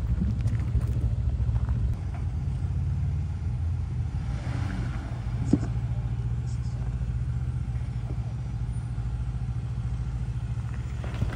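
Jeep Gladiator's engine running steadily at low revs while crawling a rough off-road trail, with a few light knocks and one sharper knock about halfway through.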